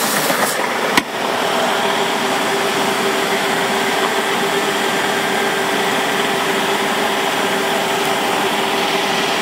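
Electric power sander running steadily, a continuous motor whir and hiss with a faint steady tone through it. A single sharp click about a second in.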